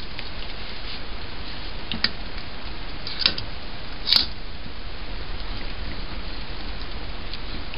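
Spoons in a stainless steel stockpot of thick corn mash, giving a few light clicks and knocks against the pot, the loudest about four seconds in, over a steady hiss.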